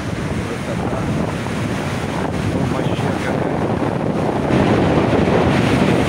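Storm waves surging and breaking on the beach, with strong wind buffeting the microphone. The surf and wind grow louder about four and a half seconds in.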